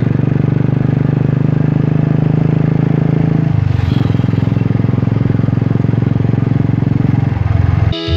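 Royal Enfield single-cylinder motorcycle engine running at road speed, heard from the rider's seat, its pulsing exhaust note steady apart from a brief dip about three and a half seconds in, likely a gear change, and a drop in pitch near the end.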